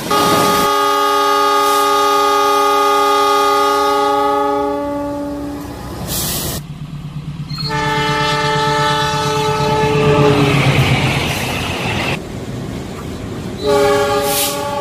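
Train horns sounding in three separate held blasts, each a chord of several steady tones: a long one of about five seconds, a second lasting about three seconds over the low rhythmic rumble of an approaching diesel locomotive, and a short blast near the end.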